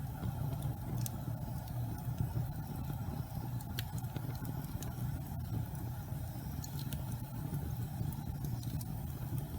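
Fireplace fire burning with a steady low rumble and scattered sharp crackles and pops.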